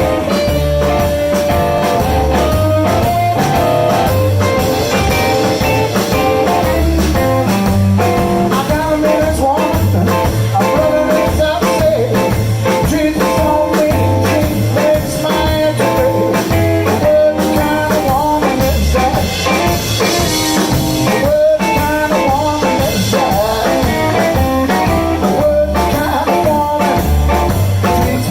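Live blues band playing: electric guitar lines over bass and drum kit with a steady beat.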